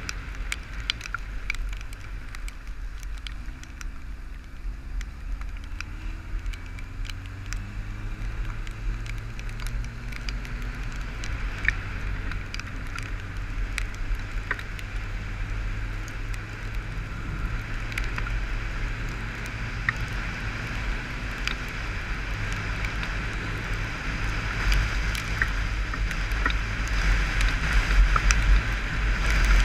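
Motorcycle riding in the rain: the engine runs under a rush of wind, with many small ticks of raindrops hitting the helmet-mounted camera. The engine note climbs a few seconds in, and the wind grows louder near the end as the bike speeds up on the open road.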